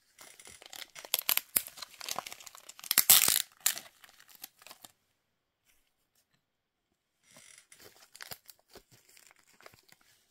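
Small toy ingredient packet crinkling and tearing as it is opened by hand. The crackling is loudest about three seconds in, stops for a couple of seconds, then returns more softly near the end.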